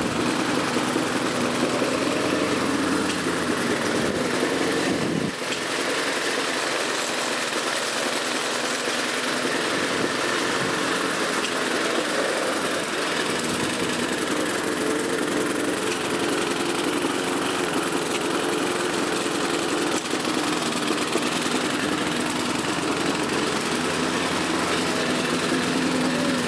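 Self-propelled lawn mower's single-cylinder Briggs & Stratton petrol engine running steadily. It runs a little rough, a sign that it needs a service.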